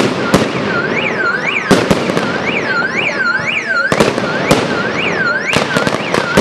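Aerial firework shells bursting overhead: a string of sharp bangs over a steady crackling hiss. Through it, a car alarm wails up and down about twice a second.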